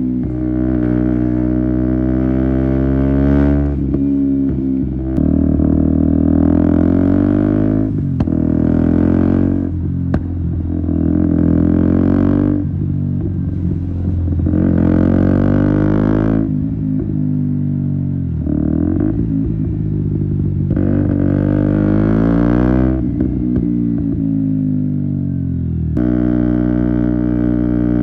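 KTM Duke 125's single-cylinder four-stroke engine through an Akrapovic exhaust, ridden on the road. It revs up under throttle and eases off again several times, its pitch rising and falling with sudden changes between pulls.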